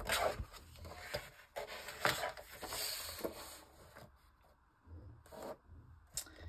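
Sheet of ledger paper rustling and being cut, with a run of short scraping strokes over the first three seconds or so.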